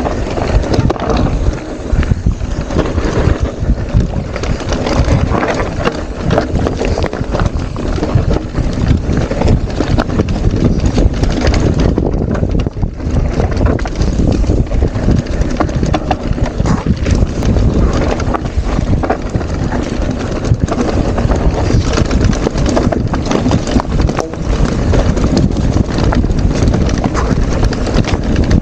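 Mountain bike rattling over large loose stones on a rocky trail: a dense run of small knocks and clatter from the wheels, frame and chain. Wind rumbles on the microphone throughout.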